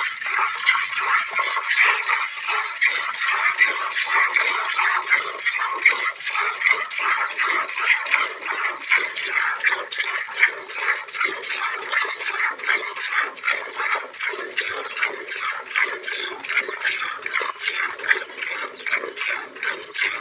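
Hand-milking a Holstein Friesian cow: milk squirts from the teat into a steel pail in a steady rhythm of hissing streams, about two or three squirts a second.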